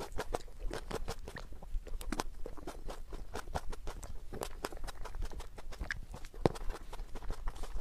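Close-miked chewing of cherry tomatoes: many sharp, irregular wet clicks and smacks from the mouth.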